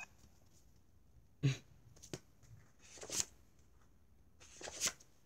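Faint room tone with a few brief scratchy noises and a click, from a small spiral notepad being handled and drawn in.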